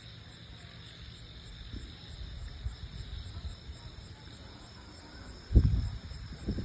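Night insects, crickets, chirping steadily in a regular pulse over a low rumble of wind on the microphone. A loud, low thump comes about five and a half seconds in.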